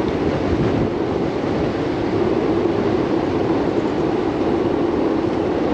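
Steady rushing road and wind noise from riding a touring bicycle along a highway, with a constant low hum and no changes.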